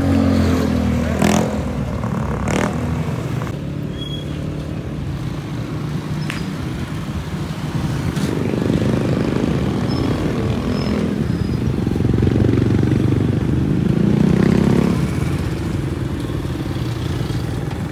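Street traffic: motor vehicle engines passing, swelling and fading several times, with two sharp knocks in the first few seconds.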